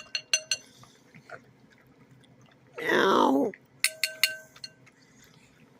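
Puppy lapping milk from a bowl: a few quick clicks and clinks against the bowl, each with a short ringing tone, near the start and again about four seconds in. Between them, about three seconds in, one loud high "meow"-like call falling sharply in pitch.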